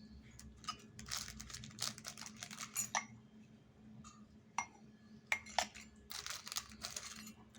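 Small metal lock parts and keys clinking and clicking as they are handled, with some rustling between the clicks.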